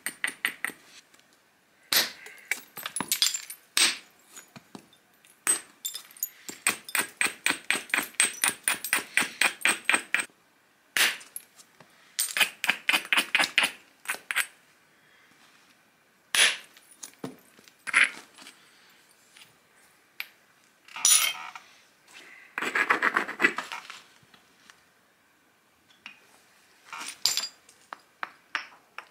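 Flintknapping: a hammerstone and an antler billet striking the edge of a stone biface as it is shaped into a disc, making sharp stone clicks and clinks in scattered groups. Long runs of quick light taps come about six seconds in and again around twelve seconds.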